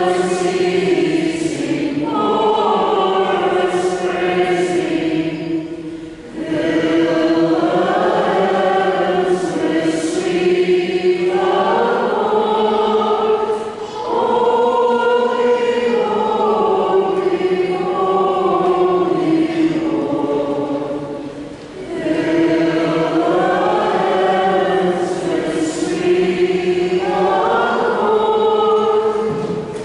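A choir singing a hymn phrase by phrase, with short breaks for breath about six, fourteen and twenty-two seconds in.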